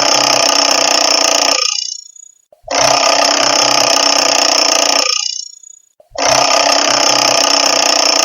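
Retro mechanical alarm clock bell ringing in repeated bursts of about two and a half seconds, each cut off with a short fade and restarting after under a second's pause: the ringing stops about two seconds in, restarts, and does so again near six seconds.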